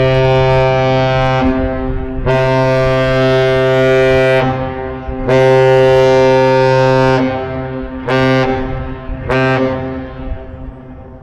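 Great Lakes freighter Arthur M. Anderson's horn sounding the master salute: a long blast that ends a second or so in, two more long blasts, then two short ones near the end. Three long and two short is the lakers' traditional salute, here a greeting to a cruise ship.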